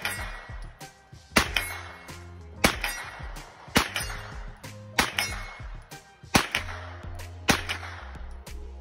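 Single shots from a compact semi-automatic firearm fired at steel targets, about seven shots a little over a second apart, each trailing off briefly. Background music plays underneath.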